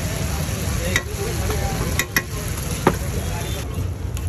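Spiced masala sizzling on a large flat tawa griddle over a fire, with a metal spatula stirring and spreading it and clicking against the pan a few times.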